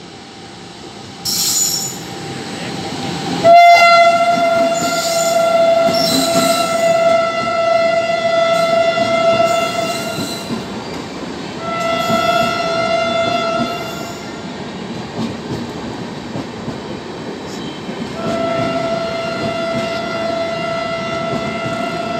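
Rajdhani Express passing close at speed: the locomotive's horn sounds a long blast of about seven seconds, then a short one, and another of a few seconds near the end, over the steady rumble and clatter of the coaches rushing past.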